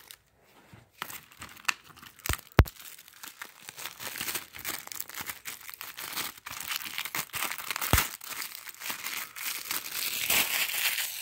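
Clear plastic shrink-wrap being torn and peeled off a Blu-ray case, crinkling and crackling almost continuously from about three seconds in. A few sharp clicks come before it.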